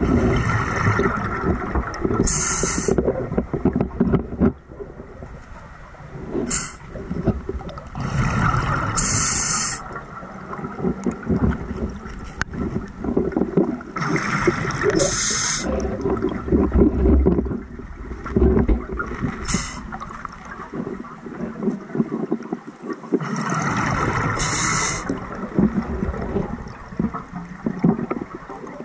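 Scuba diver breathing through a regulator underwater: exhaled bubbles gurgle out in four long bursts several seconds apart, with low crackly water noise between them.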